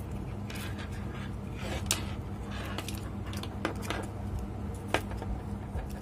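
Handling noise from a refrigeration controller's circuit board being fitted into its plastic housing: a few scattered plastic clicks and light knocks, the sharpest about five seconds in, over a steady low hum.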